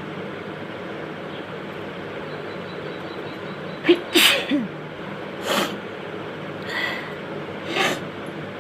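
A woman sneezes sharply about four seconds in, set off by tickling the inside of her nose with a cotton bud. Three shorter breathy bursts follow over the next few seconds, over a steady background hiss.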